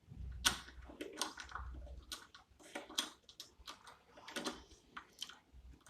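Irregular sharp clicks and taps made by hand, a few a second, with a dull low thump under them in the first two seconds.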